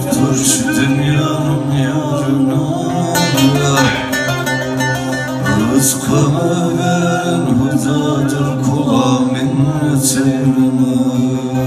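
Turkish folk song performed live: a bağlama (long-necked saz) being plucked and strummed, with male voices singing through microphones over steady sustained low notes.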